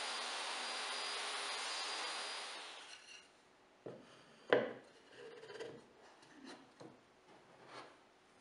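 Table saw running steadily as its blade cuts a pine board, the sound fading out about two and a half seconds in. Then a wooden lid is set onto a pine box with two sharp knocks, the second the loudest, and is rubbed and pressed into place with soft wood-on-wood scraping.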